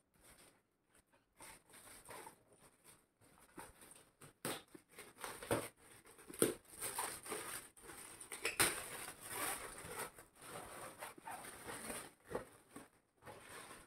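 Metallic foil gift wrap crinkling and tearing as it is pulled open by hand, in irregular rustles and crackles.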